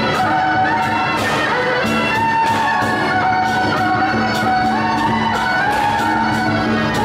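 Procession band music: horns playing long held notes over percussion strokes about two to three a second.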